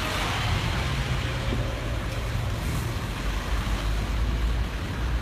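Road traffic noise with a steady low engine hum from idling vehicles.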